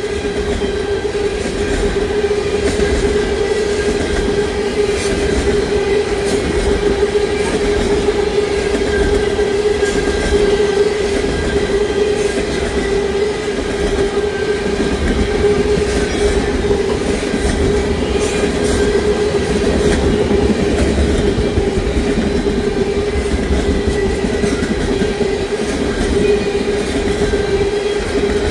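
Norfolk Southern unit train of ethanol tank cars rolling steadily past: a continuous rumble of steel wheels on rail with a steady hum and clicking wheels over rail joints.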